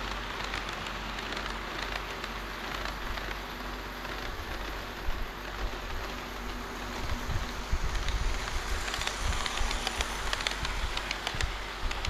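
HO-scale model train running on the layout track: a steady rushing noise with wheels clicking over the rail joints. The clicking grows louder and busier from about seven seconds in as the train comes closer.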